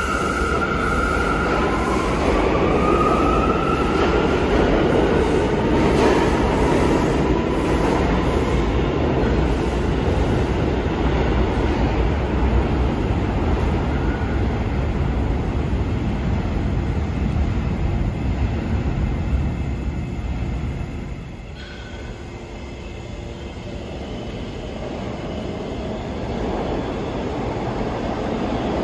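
New York City subway train running through the station, its wheels rumbling on the rails, with a rising whine in the first few seconds. The noise drops about two-thirds of the way through, then builds again near the end.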